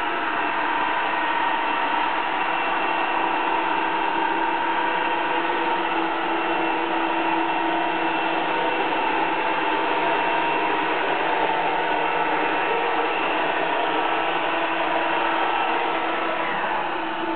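Roomba robot vacuum running: a steady mechanical whir with a constant hum from its motor and brushes.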